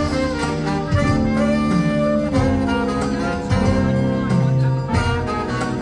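Live band playing a song, an instrumental passage with held melody notes over bass and drums and no singing.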